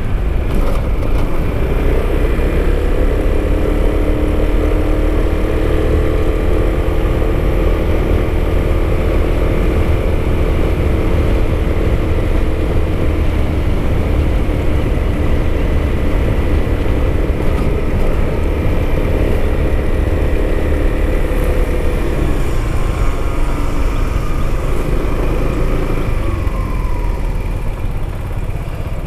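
A 300 cc scooter engine running at a steady cruise, under heavy wind rush on the microphone. About 22 seconds in, the engine note drops away as the throttle eases off.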